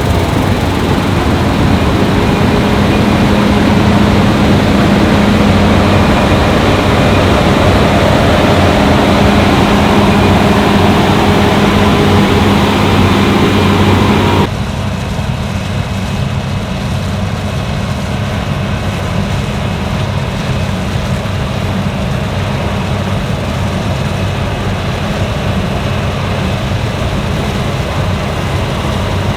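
Fendt Ideal 10T combine harvester running steadily while harvesting wheat, a dense machine noise with a low engine hum. About halfway through it abruptly becomes quieter and duller.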